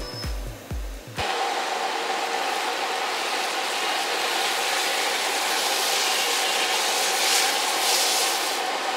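Music with a steady beat cuts off abruptly about a second in. A steady rushing hiss follows as soaked rice pours into a large aluminium pot of biryani broth.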